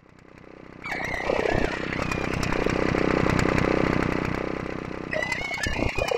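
Blackbird song morphed with a continuously running engine recording in the Zynaptiq Morph 3 Pro spectral morphing plug-in. After a fade-in, about a second in it becomes a dense, pulsing engine-like sound, loudest in the middle, and near the end the bird's whistling tones come back through it as the morph swings back toward the birdsong.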